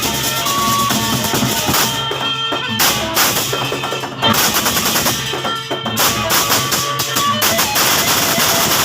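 Gendang belek ensemble playing: large double-headed Sasak drums beaten in rapid, dense strokes over a bright metallic wash. The bright upper layer drops out briefly twice.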